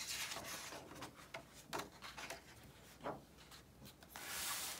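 Paper pages of a hardcover picture book being turned by hand: soft rustling with a few light taps, then a longer swish of paper sliding near the end.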